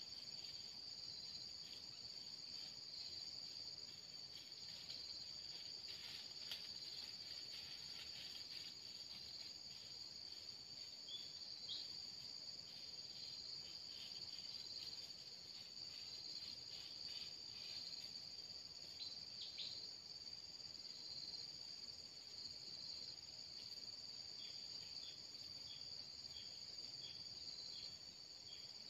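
Steady high-pitched insect chorus with no let-up, faint and even, with a few brief high chirps and ticks scattered through it.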